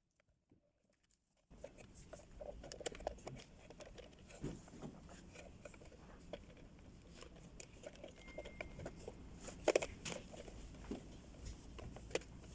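Faint scattered clicks and taps of plastic and metal parts being handled and fitted together while a fuel pump assembly is put together, with one louder click a little under ten seconds in.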